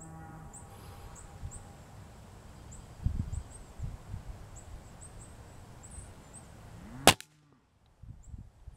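A .177 Benjamin Trail NP Mark II nitro-piston air rifle fires a single shot about seven seconds in: one sharp crack.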